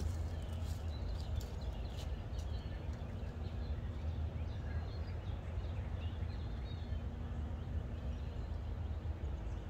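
Small birds chirping now and then, over a steady low rumble.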